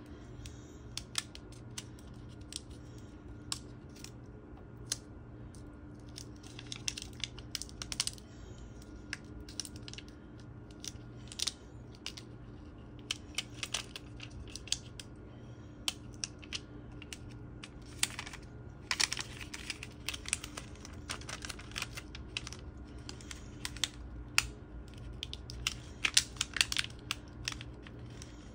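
Paper backing being peeled off clear transfer tape that holds a cut vinyl decal: irregular small crackles and ticks, coming thicker in spells about two-thirds of the way in and near the end.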